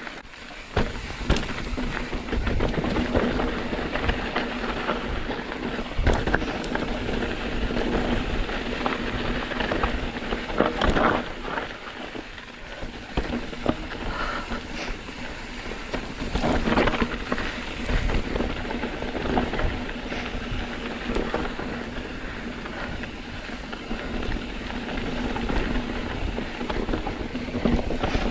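Mountain bike riding over a rocky trail: tyres running over rock and gravel, with frequent knocks and rattles from the bike over bumps.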